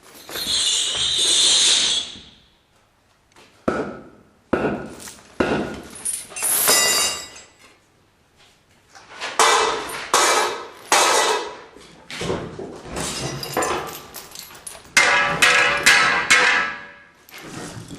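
Staged wharf work sounds: a run of knocks, thuds and clinks as heavy objects are handled and struck, with a bright clinking burst about half a second in and a denser, partly ringing stretch near the end.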